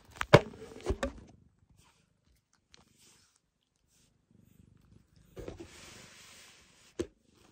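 Orange tabby cat giving a short, harsh open-mouthed call toward another cat near the start, followed later by a longer breathy, hiss-like sound and a single sharp click near the end.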